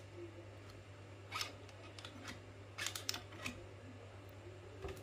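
Sharp metallic clicks and clacks of an alloy quick-release bicycle pedal being pushed and worked onto its crank adapter, stiff and not yet seating: a click about a second and a half in and a quick cluster around three seconds in. A low steady hum underneath.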